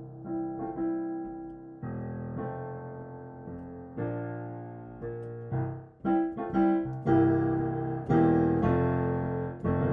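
Piano introduction to a gospel-style song: chords struck and left to ring and fade, changing every second or two, then more often from about six seconds in.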